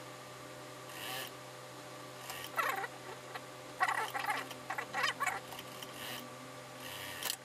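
Hands rubbing and shifting suit-trouser fabric across a sewing machine bed, in short irregular scratchy rustles, over a steady low hum.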